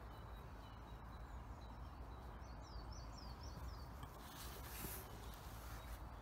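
Steady low outdoor background rumble. About two and a half seconds in, a bird gives a quick run of about six short falling chirps, and a brief rustle of fabric follows about a second later as the mesh weigh sling is lifted.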